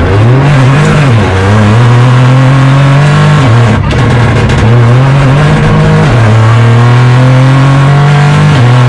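Opel Corsa Rally4's turbocharged 1.2-litre three-cylinder engine at full throttle, heard inside the cabin. It revs hard, its pitch climbing and dropping back several times, with a brief cut about four seconds in.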